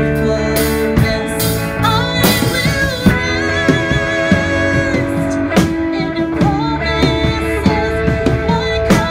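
Live rock-style band music from electric guitars and a drum kit, with singers' voices over it.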